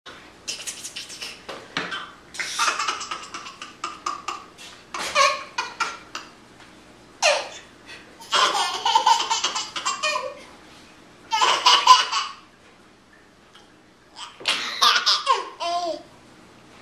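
A toddler laughing in repeated fits, about seven bouts of a second or two each, with short pauses between them.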